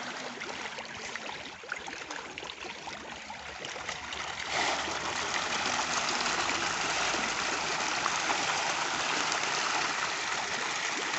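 Hundreds of Nile tilapia thrashing and splashing at the water surface in a net cage in a feeding frenzy, a dense churning splash that steps up louder about four and a half seconds in.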